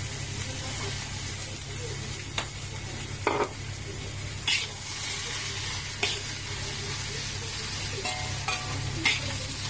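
Fried rice sizzling in a steel wok while a metal spatula stirs it, with a sharp scrape of metal on the wok every second or so. Under it runs a steady low hum.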